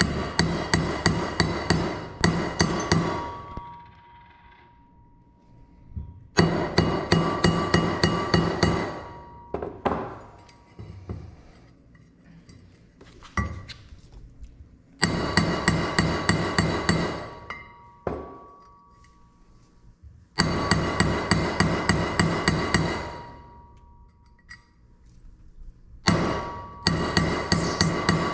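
Hammer blows driving the roller pins into a Can-Am Maverick X3 clutch until they are flush and clear the insert. The blows come in five quick runs of about four a second, separated by short pauses, with the metal ringing between blows.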